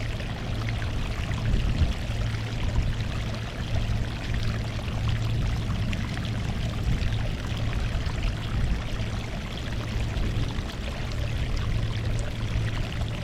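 Sea water washing against a rocky shore: a steady wash with fine fizzing and crackle over a low rumble that swells and eases every second or two.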